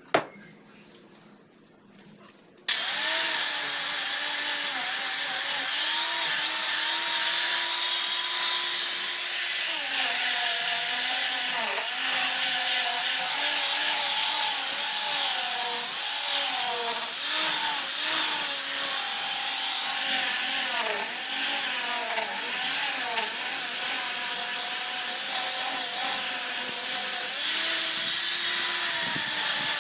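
Handheld electric disc sander switched on a few seconds in, then running steadily as it sands an ipil-wood frame. Its whine dips in pitch now and then as the disc is pressed into the wood. A single sharp click at the very start.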